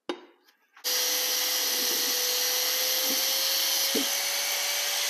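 A handheld angle grinder starts up about a second in and grinds steel steadily with a high whine, cutting a small groove in the edge to leave room for weld filler. A short click comes just before it.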